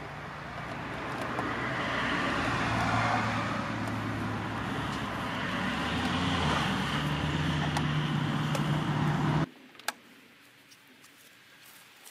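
Car engine running steadily, heard inside the cabin, with a low hum that shifts slightly in pitch. It cuts off abruptly about nine and a half seconds in, leaving quiet outdoor background with a few faint clicks.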